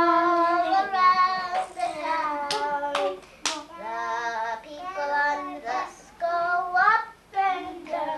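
Young children singing a song together in held, pitched notes, with three sharp claps about halfway through.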